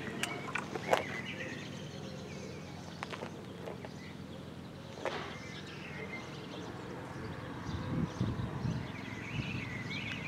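Outdoor ambience: small birds chirping now and then over a steady low hum. A few sharp clicks cut in, the loudest about a second in, and there is a short burst of low rumble near the end.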